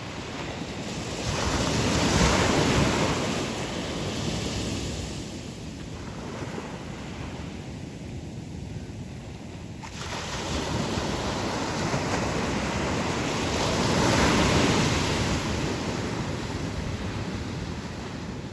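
Sea waves breaking and washing up a beach: two large surges swell and fade, the loudest about two seconds in and again about three-quarters of the way through, with a new wave breaking suddenly near the middle.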